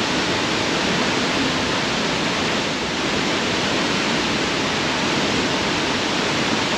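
Casaroro Falls waterfall pouring, a steady, unbroken rush of falling water.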